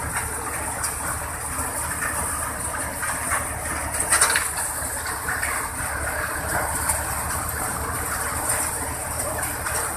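Guru Hindustan groundnut-cum-multicrop thresher running steadily under load, its drum and blower making a continuous rush and rattle over the low drone of the tractor engine driving it, with a brief louder rattle about four seconds in.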